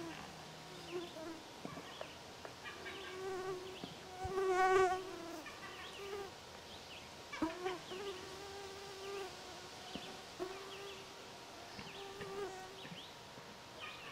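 Black bear moaning: a series of short, buzzy, pitched calls, each held up to about a second, the loudest about four to five seconds in. These are the vocal sounds of an uneasy, nervous mother bear.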